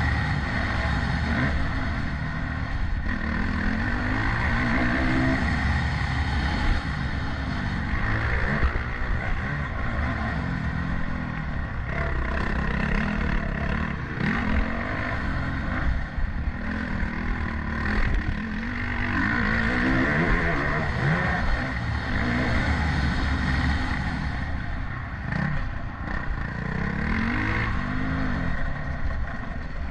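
Motocross bike's engine revving hard and dropping back again and again as it is ridden, its pitch climbing and falling every second or two over a continuous rushing noise.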